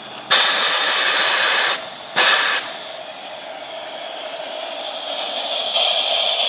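Steam blowing out of a steam boiler's try cocks as they are opened to check the water level: a loud hiss of about a second and a half, then a short second blast. A softer steady hiss follows and slowly grows louder, stepping up near the end.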